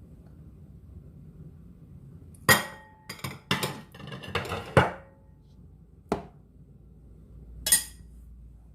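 A tablespoon knocking and clinking against a jug as chili paste is tapped off it: a quick cluster of clinks in the middle, then two single taps.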